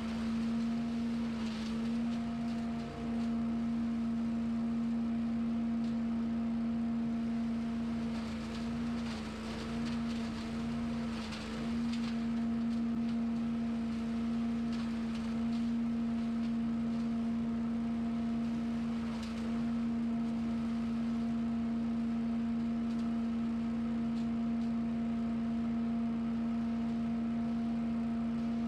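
Small gasoline engine of lawn equipment running steadily at high speed, holding one even pitch, with a few brief wavers in the first half.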